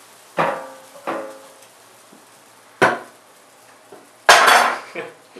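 A kitchen knife striking a wooden table: a sharp knock just under three seconds in, then a louder, heavier thunk about four seconds in as the knife is jabbed point-first into the wooden tabletop.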